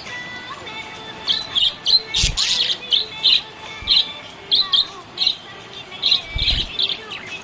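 Budgerigar chirping: a run of short, high chirps, two or three a second, starting about a second in, with a couple of low thumps along the way.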